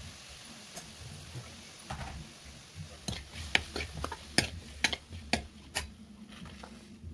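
Steel ladle stirring chopped tomatoes and fried onions in a metal kadai, clinking and scraping against the pan several times in quick succession through the middle, over a soft sizzle.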